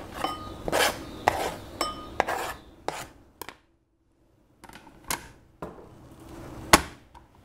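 Knife blade scraping diced onion off a plastic cutting board into a bowl in quick repeated strokes, a few of them drawing a light ring from the bowl. After a brief gap come a few sharp knocks, the loudest near the end as the board, knife and tomatoes are set down on the counter.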